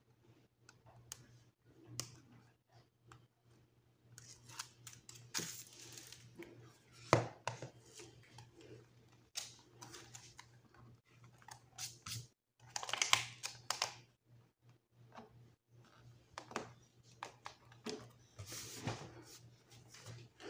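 Faint paper and tape handling: scattered rustles, short tearing-like peels and light taps as double-sided tape is worked and paper pages are pressed into a planner cover.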